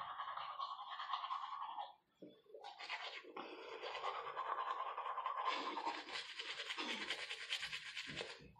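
Manual toothbrush scrubbing teeth through a mouthful of foam from a chewed charcoal tooth tablet, stopping briefly about two seconds in, then scrubbing on.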